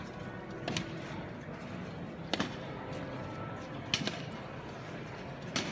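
Sharp knocks at a slow, even pace, about one every second and a half, over a steady background hum.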